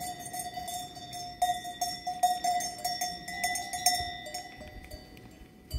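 Bells on a flock of sheep clinking and ringing, several bells sounding at once with irregular clanks as the animals move, growing quieter near the end.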